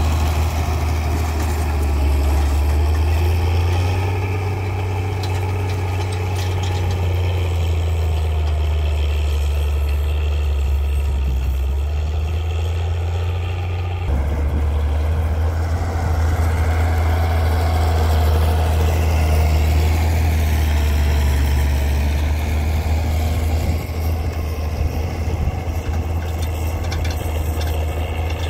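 Zetor 16145 tractors' six-cylinder turbo diesel engines running steadily under load while pulling field cultivators, a deep continuous drone. The sound changes abruptly about halfway through.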